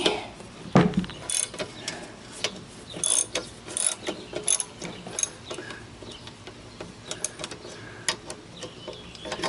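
Ratchet wrench clicking in short runs as the cast-iron jointer's table bolts are backed out, with a single louder knock about a second in.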